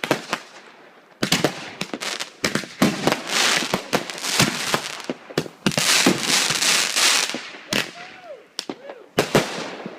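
Consumer fireworks going off: a rapid, irregular run of sharp bangs and crackling with a hiss, densest from about a second in until near the end, where it thins to a few scattered bangs.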